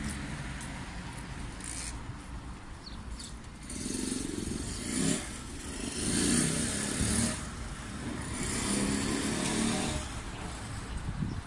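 Outdoor street noise of passing vehicles, a low rumble that swells louder several times from about four seconds in.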